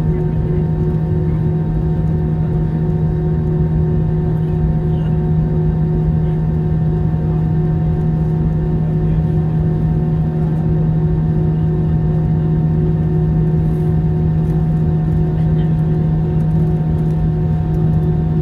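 Steady drone of an airliner cabin, with a strong constant low hum over a rumbling background and no change in level.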